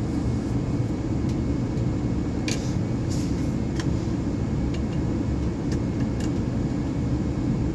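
Gas furnace running, a steady low rumble of the burners and blower, with a few light clicks of tools being handled at the gas valve's pressure port.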